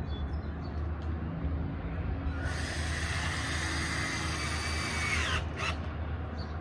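Cordless drill spinning for about three seconds, a steady whine that falls in pitch and winds down as the trigger is released, followed by a short click. A steady low hum runs underneath.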